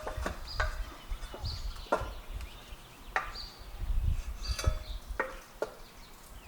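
Irregular clanks and knocks, some ringing briefly like metal, from a prop wrench and wooden 2x4 against an outboard's stainless propeller as the prop nut is worked loose. A low rumble runs underneath.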